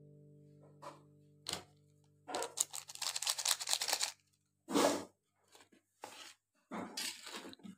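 Plastic seasoning sachet crinkling as ground pepper is shaken out of it over a wok of soup, a dense crackle lasting about two seconds. Then a metal spatula scrapes and stirs in the metal wok in a few short strokes.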